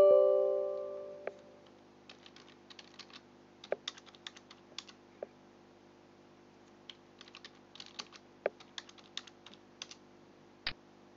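A short chime rings and fades over about a second and a half, followed by computer keyboard typing: irregular key clicks in two runs, with one sharper key press near the end.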